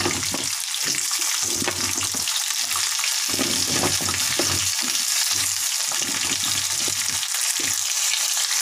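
Cauliflower florets and potato chunks frying in hot oil in a kadhai make a steady sizzle. Irregular soft knocks and rustles run through it as potato pieces are dropped in among the cauliflower.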